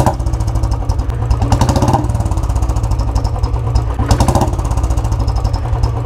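Royal Enfield Bullet's single-cylinder engine running at a steady beat through an exhaust fitted with an aftermarket whistle insert meant to add a Kawasaki H2-style whistle. The note brightens briefly twice, about one and a half and four seconds in.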